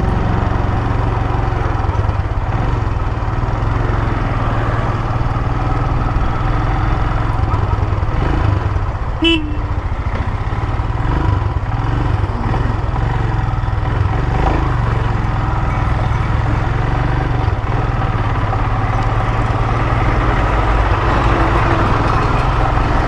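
Royal Enfield Himalayan motorcycle riding along, its engine running steadily under road and wind noise. A brief horn toot sounds about nine seconds in.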